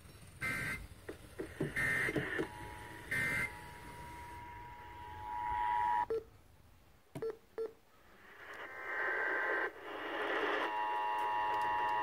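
Emergency Alert System tones played over FM radio. First come three short digital data bursts, the end-of-message code, and a steady two-tone sound. Then a few short button beeps from the radio, and a longer data burst, the SAME header, which leads into the loud two-tone attention signal that opens a Required Monthly Test.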